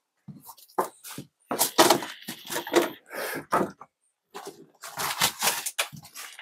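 Irregular crunches, cracks and scrapes of debris and wood being disturbed on the floor of a derelict building, in short bursts with brief pauses between them.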